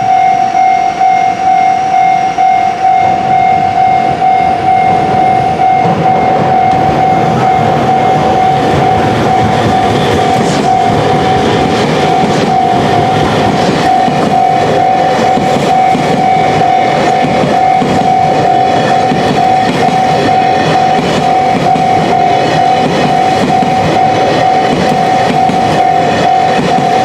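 Japanese level-crossing warning bell ringing in rapid repeated strokes, with a train passing over the crossing, its wheels clattering on the rails.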